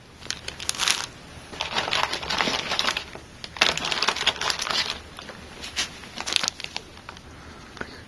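Small plastic accessory bags crinkling as they are handled, in several bursts with short pauses between.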